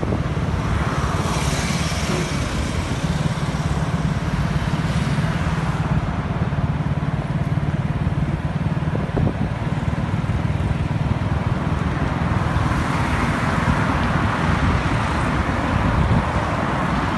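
Steady engine hum and road noise from a vehicle driving along a city road, with other traffic on it. There is a louder rush of passing traffic for a few seconds near the end.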